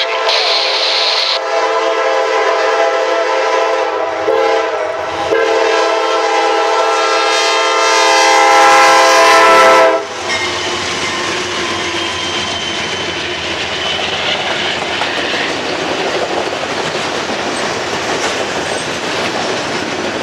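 Horn of a Norfolk Southern GE C40-9W diesel locomotive sounding for a grade crossing: one long blast, a brief break, then a second long blast that grows louder as the locomotives pass close by and cuts off suddenly about halfway through. After that, the steady rumble and clickety-clack of the auto-rack freight cars rolling past.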